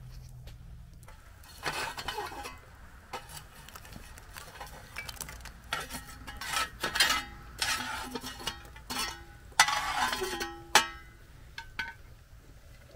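Long-handled metal shovel scraping hot coals and ash across a cast-iron Dutch oven lid, in a run of scrapes and ringing metal clanks that starts a second and a half in.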